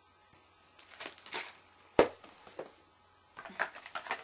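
Small cardboard packets being set into a cardboard box: light rustles and taps, one sharp knock about two seconds in, and a run of quick rustles and taps near the end.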